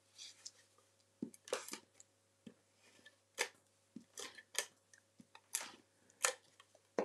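A tape runner laying adhesive strips on a small square of cardstock: a string of short, faint rasps and clicks at irregular spacing, along with paper sliding on the desk.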